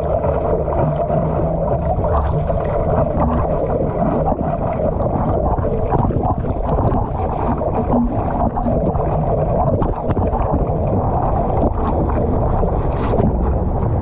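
Ocean water sloshing and splashing against a surfboard as a surfer paddles prone through choppy sea, with irregular splashes from the arm strokes and wind buffeting the microphone.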